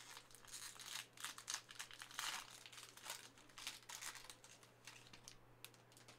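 Foil wrapper of a Panini Prizm trading card pack faintly crinkling and tearing as it is opened, in a quick irregular run of rustles that peaks a little past the middle.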